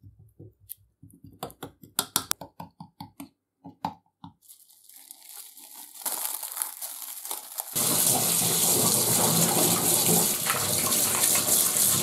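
A spoon clicks and scrapes as a paste is packed onto a copper part, followed by plastic wrap crinkling. About eight seconds in, a tap starts running loudly into a sink and keeps running until it cuts off suddenly at the end.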